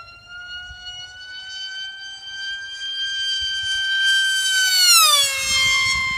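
Ritewing Demon's Mega 16/30/2C electric motor and 6x4 APC propeller whining at high speed, the pitch creeping up as it gets louder, then dropping sharply about five seconds in as the plane flies past.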